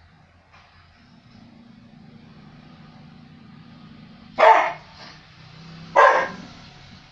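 Border collie growling low and steady, then barking twice, loud and short, about a second and a half apart. It is guarding its resting place on the sofa.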